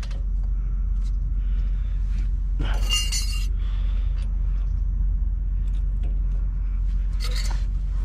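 Metal brake pads and their clips clinking and scraping against the caliper bracket as they are fitted. Two louder scraping clatters stand out, about three seconds in and near the end, over a steady low hum.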